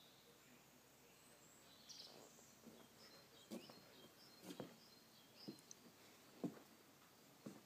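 Near silence outdoors, with faint bird chirps and footsteps on wooden decking, about one step a second from about two seconds in.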